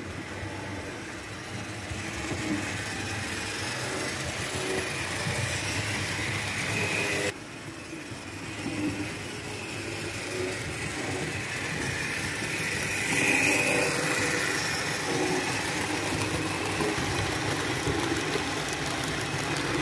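HO-scale model trains running on the layout's track: a steady hum of small electric motors and wheels rolling on the rails. The sound drops suddenly about seven seconds in, then grows louder about thirteen seconds in as a train comes close.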